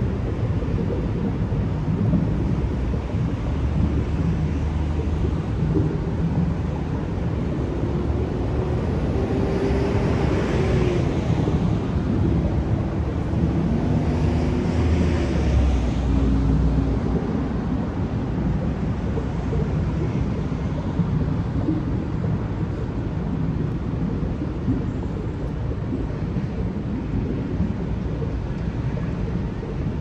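Steady rumble of city street traffic with wind on the microphone; a louder vehicle passes between about ten and sixteen seconds in.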